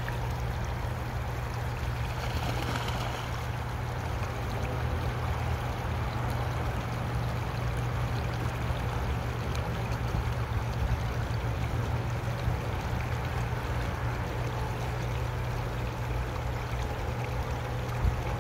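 Creek water running steadily, a constant hiss over a steady low rumble, with a brief louder rush about two to three seconds in.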